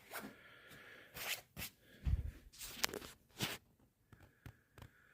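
Rustles and light clicks of an unwrapped championship belt and its packaging being handled, with a dull thump about two seconds in.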